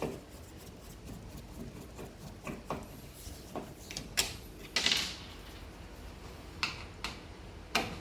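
Scattered clicks and knocks of a screwdriver and screws being worked loose at the back of a washing machine's top panel, with a brief scraping rasp about five seconds in.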